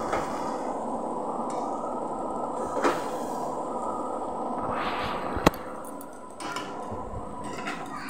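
Water spinach and boiled eggs frying in a metal kadai: a steady sizzle with the scrape of a metal spatula stirring. There is a clink about three seconds in and a sharp metal tap about five and a half seconds in, after which the sound quietens.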